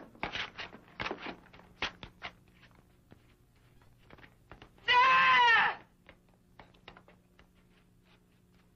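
A few faint knocks and shuffles, then about five seconds in a single high, wailing human cry lasting about a second, its pitch rising and falling, on an old film soundtrack with a faint low hum.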